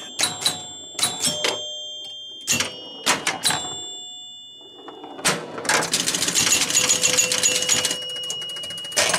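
1976 Gottlieb Target Alpha electromechanical pinball machine in play: sharp clacks of coils and relays, several with a ringing chime tone after them. From about five and a half seconds it breaks into a fast, dense rattle of relays and stepping units that lasts a few seconds, with a steady ringing tone running on underneath.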